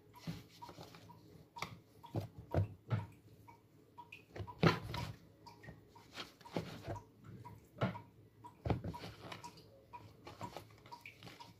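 Hands pressing and turning raw pork chops in a flour and cornstarch dredge in a plastic tub: irregular soft pats, rustles and scrapes against the plastic as the meat is coated.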